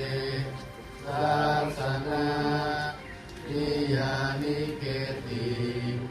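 Low-pitched group chanting: voices intoning in long, even phrases of about two seconds each, with brief pauses between, over a steady low pitch.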